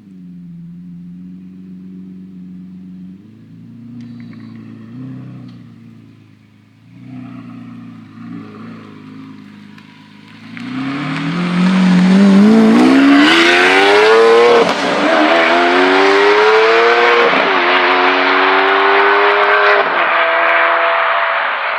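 A sports car's engine running low and fairly quietly, then accelerating hard from about halfway: the pitch climbs steeply and drops back three times at upshifts before settling into a loud, high steady note.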